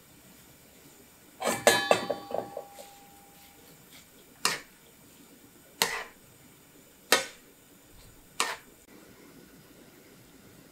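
A clatter of kitchenware with a brief metallic ring, then four single sharp knocks at even spacing, about one and a half seconds apart.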